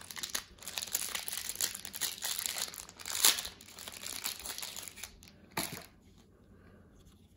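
Crinkly plastic being handled: a dense run of crackles and rustles, with one louder crackle a little after three seconds in, stopping about six seconds in.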